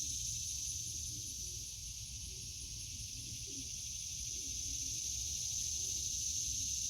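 Steady high-pitched insect chorus with a faint, evenly pulsing higher trill over a low background rumble.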